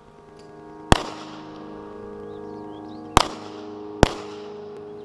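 Three sharp, loud gunshots, each ringing out in a short echo, the last two about a second apart, over background music.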